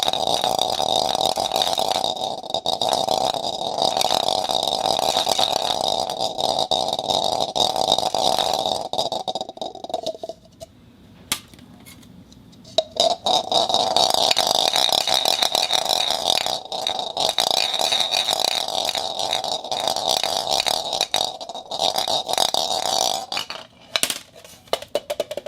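Marbles rolling and rattling around inside a plastic cup, a continuous whirring rattle. It stops for about three seconds partway through, with two sharp clicks in the gap, then starts again and ends in a few separate clicks.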